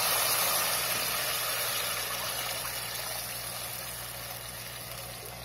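Tamarind water mixed with chilli powder and salt poured into hot, oily tomato masala in an open pressure cooker, the liquid splashing in and the sizzle dying away steadily as it goes in.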